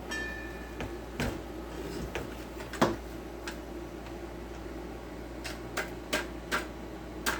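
Irregular clicks and knocks of a Chicago Electric circular saw's depth adjustment being worked by hand into position, stiff because the saw is new; the clicks come closer together in the last couple of seconds.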